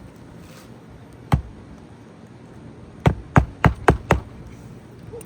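Hammer blows nailing a replacement asphalt shingle onto a roof: a single knock, then a quick run of five knocks about four a second.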